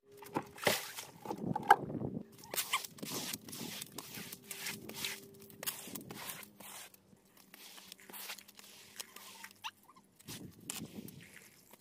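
Irregular rustling, scraping and sharp knocks of debris and weeds being cleared and handled by hand, with footsteps, over a faint steady hum that fades out about three quarters of the way through.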